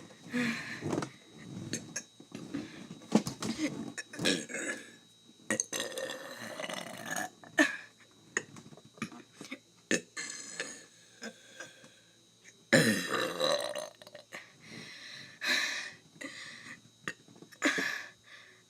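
A person burping again and again: a run of separate belches, some short and some drawn out. The longest and loudest comes about thirteen seconds in.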